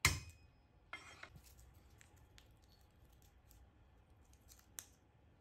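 A cleaver's flat blade smashes a garlic clove on a bamboo cutting board with one sharp knock, and a smaller knock follows about a second in. Then come faint scattered clicks and crackles as the papery garlic skin is peeled off by hand.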